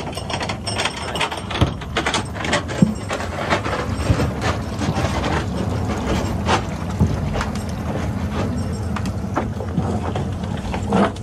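Fishing boat under way on open water: its engine runs steadily while the hull knocks and splashes through the waves many times.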